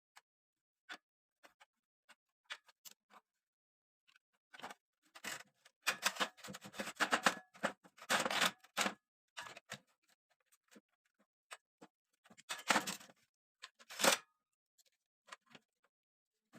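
Clicking and clattering of small hard parts being handled: a few scattered clicks, then two spells of rapid rattling clicks and knocks, the longer one about five seconds in and a shorter one near the end.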